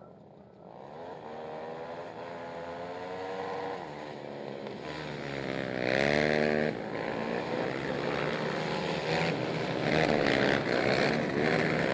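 A pack of racing quads (ATVs) accelerating hard off the start on a dirt track, several engines revving at once and rising in pitch. About six seconds in a close pass is loudest, its pitch falling as it goes by, and the engines stay loud near the end as more quads follow.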